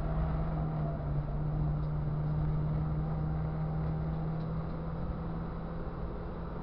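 Ford Fiesta Cup race car's engine running at steady revs under load, one held drone, over road and wind noise.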